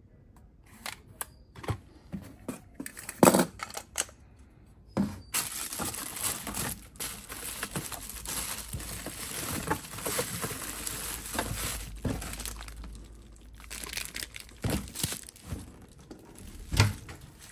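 Plastic packaging and bubble wrap crinkling and rustling as items are handled in a cardboard box, with scattered clicks and knocks and two louder knocks, one about three seconds in and one near the end.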